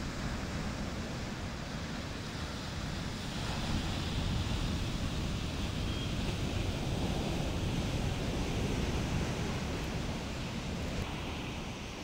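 Ocean waves breaking and washing up a beach, with wind buffeting the microphone; the surf gets louder a few seconds in.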